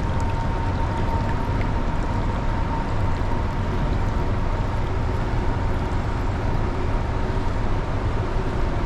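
Fast-flowing river water rushing steadily over rocks and riffles, close to the water's surface.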